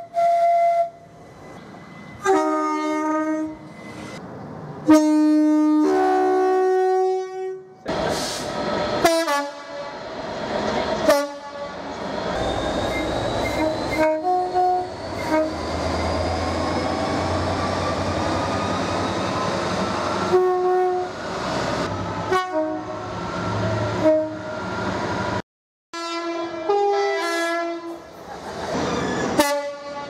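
British Rail Class 66 diesel freight locomotive's two-tone air horn played as a long multi-note sequence of short high and low blasts. About 8 seconds in, the locomotive and its wagons pass with a low engine hum and wheel noise on the rails under the horn. After a sudden cut near the end, another run of quick two-tone blasts.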